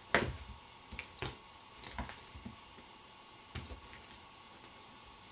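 Light metallic jingling and clicking in scattered short strokes, a few per second at most, as a kitten plays with a toy.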